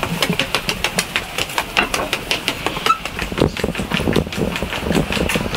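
Footsteps climbing the stairs and walking across a railway station footbridge, a quick run of sharp steps and clicks.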